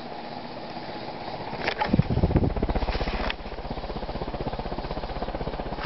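Evergo cast-iron spinner ceiling fan with four curved metal blades running close to top speed, pushing a lot of air. About two seconds in it gets louder, with a rapid, even pulsing of air as the blades pass, and a few clicks.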